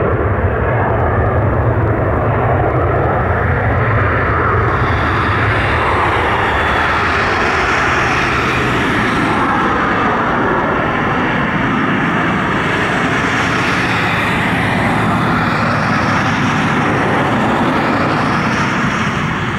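Cessna 560 Citation business jet's twin turbofan engines at takeoff power, a steady loud roar through the takeoff roll and climb-out. A higher hiss joins about five seconds in, while the deepest rumble eases off.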